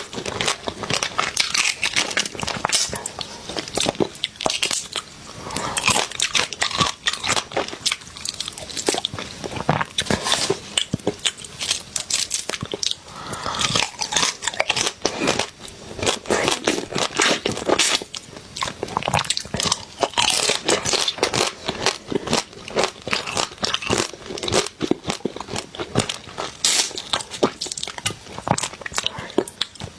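Close-miked eating of spicy crab: shells cracking between the teeth and chewing, as a dense run of irregular crunchy clicks.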